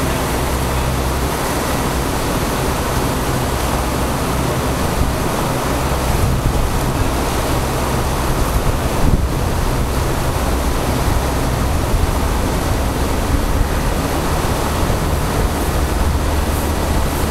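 Loud, steady rushing of white water tumbling over a weir, with wind rumbling on the microphone.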